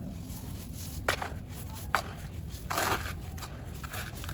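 Dry clumps crumbling and crunching: two sharp cracks about one and two seconds in, then a longer crumbling crunch near three seconds and a smaller one just after, over a low steady hum.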